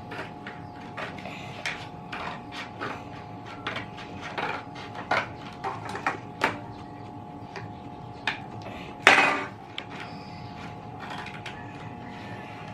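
Scissors cutting cardboard: a run of short, irregular snips and clicks, with one louder, longer crunch about nine seconds in. A steady faint hum runs underneath.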